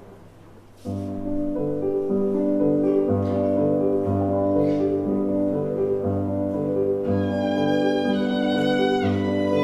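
Violin playing held melody notes over an accompaniment with sustained low bass notes, starting about a second in.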